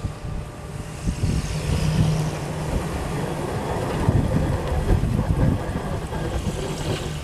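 Ford Super Duty hi-rail pickup truck running along the railroad track and passing close by: its engine and wheels on the rails grow louder about a second in, stay up through the pass, and ease off near the end. Wind rumbles on the microphone underneath.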